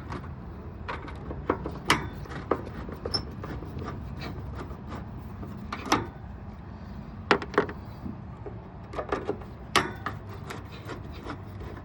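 Irregular knocks and clunks from a window air conditioner's metal case and chassis being handled, about a dozen sharp hits spaced unevenly over a low steady hum.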